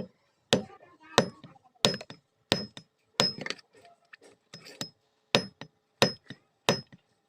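Hand hammer striking iron on an anvil in forging, about ten ringing blows at roughly one and a half a second, with a brief lull near the middle.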